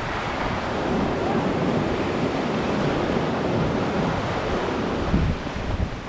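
Pacific surf breaking and washing up over sand and rocks in a steady rush that swells about a second in. Gusts of wind buffet the microphone near the end.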